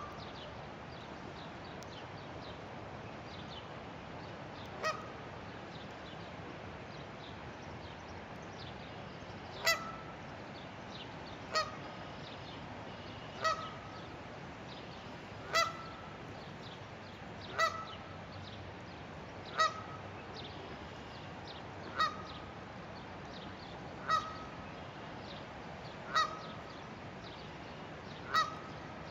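Canada goose honking, one short single honk at a time: one about five seconds in, then a regular honk every two seconds or so from about ten seconds on, over a steady background hiss.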